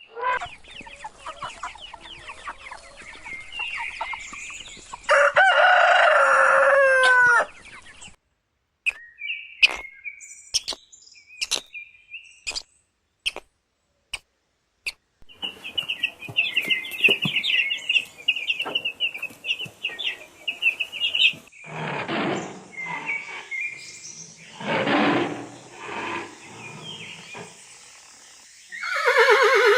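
Chickens clucking and a rooster crowing, in several short clips with abrupt cuts; the loudest call, a crow about five seconds in, lasts a couple of seconds.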